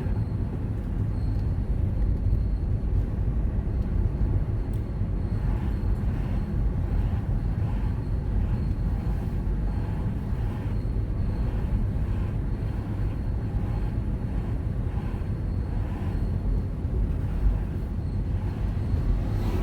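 Car driving along: a steady low rumble of road and engine noise, with one brief bump about three-quarters of the way through.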